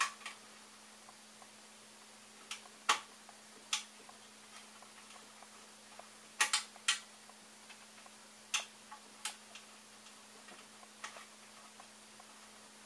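Irregular sharp clicks and taps of hands working plastic 3D-printer frame parts and screws while fitting a rod support, about ten in all and bunched around the middle, over a steady low hum.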